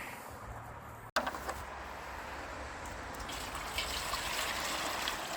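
Maple sap being poured into a storage container: a steady stream of liquid filling it, starting about a second in.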